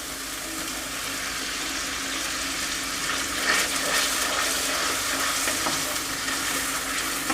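Ground onion and tomato paste sizzling in hot oil in a kadai as it is sautéed, a steady frying hiss with a faint low hum under it.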